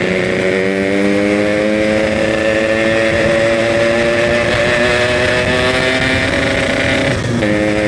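Yamaha RX-King two-stroke single-cylinder engine pulling under way, its pitch rising slowly and steadily, with a short dip about seven seconds in. The rider calls the engine very noisy and puts it down to the engine being due for an oversize rebore.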